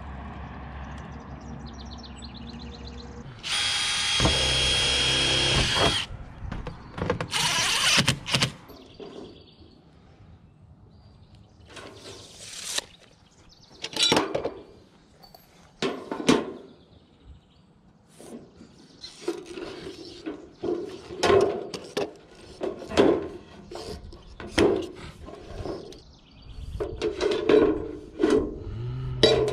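A power tool runs steadily for about two and a half seconds, with a shorter burst soon after. It is followed by many short crunches and scrapes as steel roof flashing is cut with aviation snips and handled on a wooden board.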